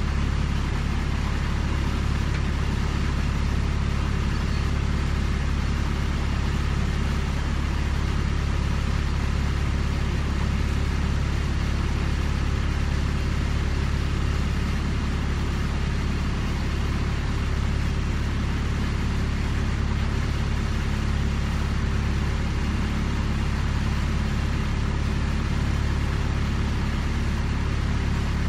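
Macwester Seaforth motor-sailer's inboard engine running steadily under way, a constant low hum heard from inside the wheelhouse.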